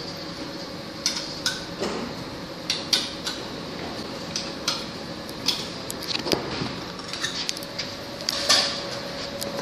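Scattered small metallic clicks and light knocks, every second or so, as screws are tightened on a conveyor's slotted metal guide plate, over a steady faint hum.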